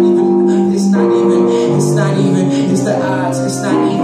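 A man singing while accompanying himself on a grand piano, with held notes and wavering vocal lines over piano chords.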